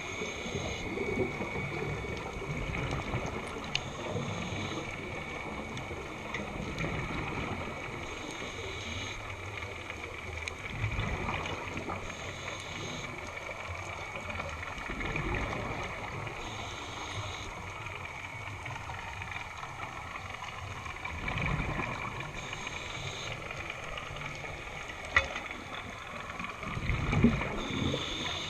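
Scuba diver breathing through a regulator underwater: a hiss of inhalation and a rumbling gush of exhaled bubbles, repeating in regular cycles every few seconds.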